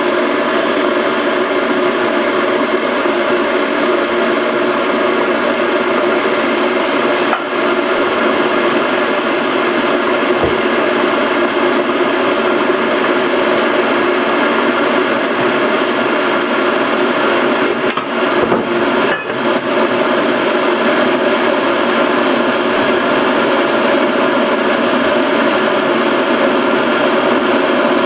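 REDMOND RK-M1441 electric kettle heating water: a steady rushing hiss and rumble from the water as it heats toward the boil, with two brief dips in level.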